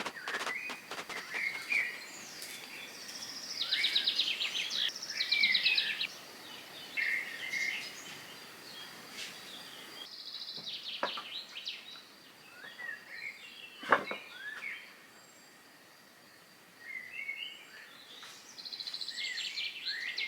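Small birds chirping and trilling in short repeated phrases, with a single sharp knock partway through.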